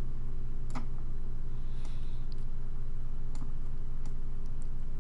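A handful of sharp computer mouse clicks at irregular intervals, as a shape is dragged and selected, over a steady low hum.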